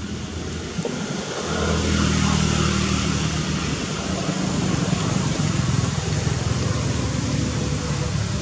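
Steady outdoor background noise: a low hum, like distant road traffic or an engine, under a broad hiss, growing a little louder about a second and a half in.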